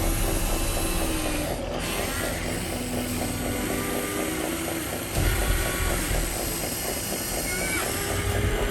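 Electric motors and plastic gearboxes of radio-controlled construction models whirring with a fast, even gear clatter. A low rumble swells about five seconds in.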